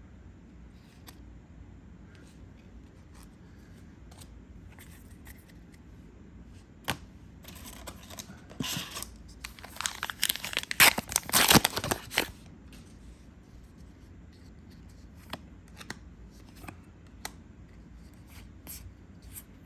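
Foil booster pack of trading cards being torn open: a few seconds of ripping and crinkling about halfway through, with scattered light clicks before and after.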